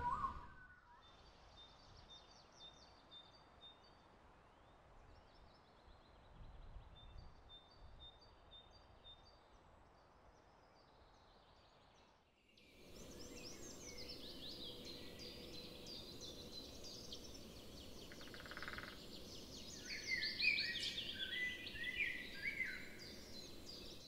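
Wild birds calling in forest: sparse, thin, high repeated notes at first. About halfway in, the sound changes to a louder, busier chorus of several birds chirping and trilling over a soft steady background.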